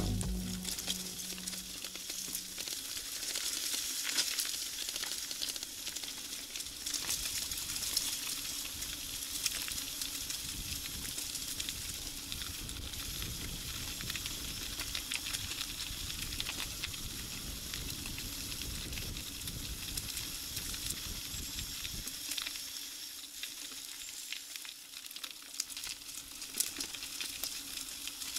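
Mountain bike tyres rolling over a gritty forest road, making a steady crackling hiss. Low wind rumble on the microphone underneath drops away about six seconds before the end.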